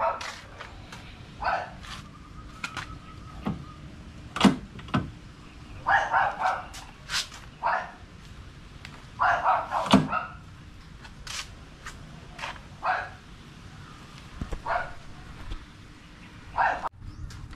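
A dog barking in short bursts every few seconds, with sharp clicks in between.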